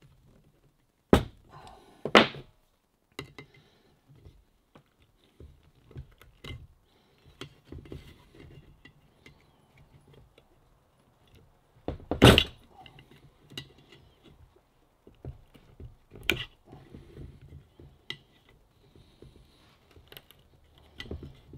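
Screwdriver prying and scraping at the stuck rubber impeller of a bronze Sherwood G65 raw water pump, with scattered metallic clicks and a few sharp knocks as the pump shifts on the wooden bench. The impeller will not come free. The loudest knock comes about twelve seconds in.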